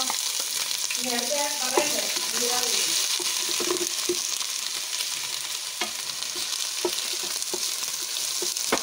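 Chopped onion and garlic sizzling in hot oil in a nonstick pot, with a steady hiss. A wooden spatula scrapes and taps against the pot bottom as they are stirred. This is the sauté stage, the onion softening.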